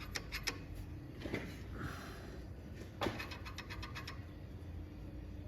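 Clusters of light metallic clicks and taps as a valve spring compressor is worked against a valve spring in a Ford GPW engine block, with a quick run of clicks a few seconds in.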